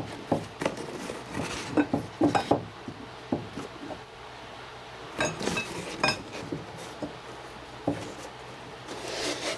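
Metal tools and parts being handled: irregular clinks and knocks, a few of them sharp clanks with a short metallic ring, as the wheel hub and chain drive of an ATV are worked on by hand.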